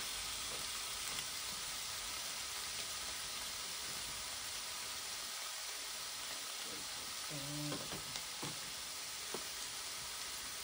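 Frozen lamb chops sizzling between the hot plates of a Tefal Optigrill Elite contact grill, a steady hiss. A brief low hum about seven seconds in, and a few light clicks near the end.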